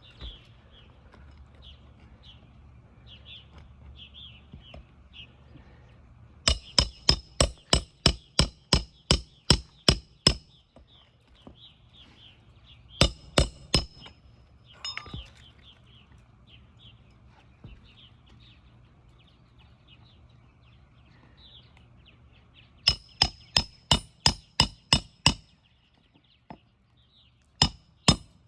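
Hammer driving roofing nails into asphalt shingles: quick runs of sharp metallic strikes, about three a second, in several bursts with pauses between. Birds chirp faintly in the background.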